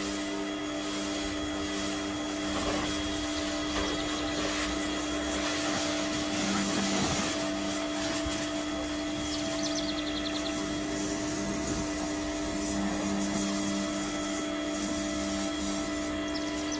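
Electric pressure washer running steadily with a constant motor tone, with the hiss of its water jet spraying over a car's bodywork as it is rinsed.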